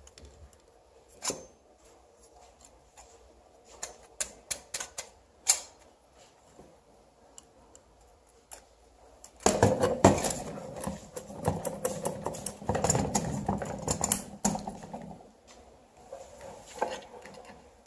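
Light clicks and taps of an old metal lantern's parts being handled and turned, then about five seconds of louder rustling and scraping from about halfway through, tailing off near the end.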